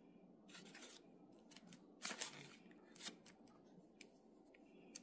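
Faint, scattered rustles and small scratchy taps of fingers working in dry flour on a paper plate while coating a chilled grits square, a little louder about two seconds in and again a second later.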